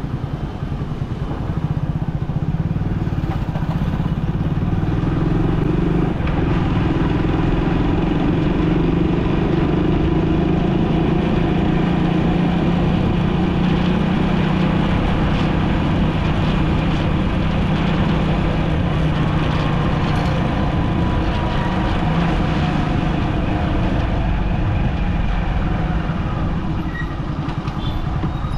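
City road traffic heard from a moving vehicle: a steady engine and tyre drone with motorcycles among the traffic, growing louder about a second and a half in.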